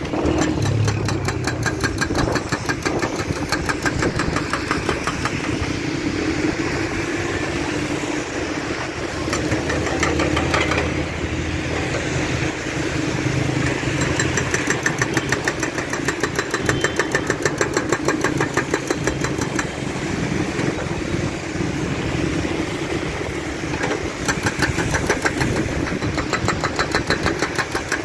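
Hydraulic breaker hammer on a Doosan wheeled excavator pounding a road surface in long runs of rapid blows, several a second, with short pauses between runs. The excavator's diesel engine runs steadily underneath.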